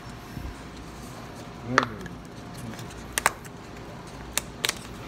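Scattered sharp clicks and knocks from the phone being handled and moved about over a table, the heaviest knock a little under two seconds in, over a steady room background.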